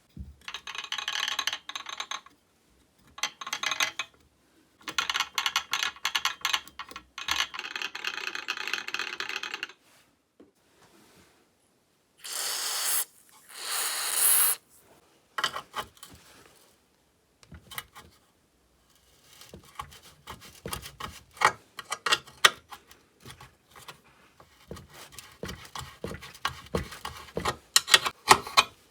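Hand tools and metal parts scraping and rubbing while an old chainsaw is taken apart, in uneven bursts. About midway come two short hissing bursts, and near the end a run of light clicks and taps.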